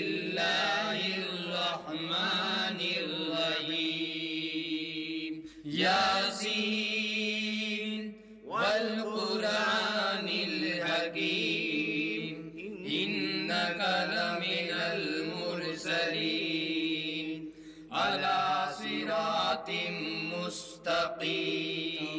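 Men's voices chanting a Quran recitation in long, melodic phrases broken by brief pauses.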